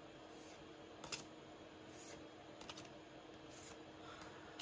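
Faint swishes of Pokémon trading cards sliding against one another as they are flipped one by one through a hand-held stack, with a small click about a second in.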